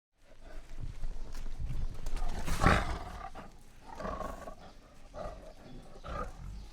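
A big cat roaring: a run of deep, rough calls, the loudest about two and a half seconds in, with weaker calls after it.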